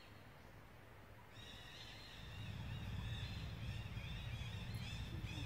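A high, wavering animal call that trills over and over, starting about a second in, with a low rumble coming up under it a little later.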